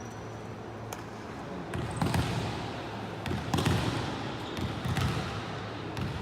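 Volleyball play: a volleyball being struck and bouncing, several sharp smacks, the loudest about two and three and a half seconds in.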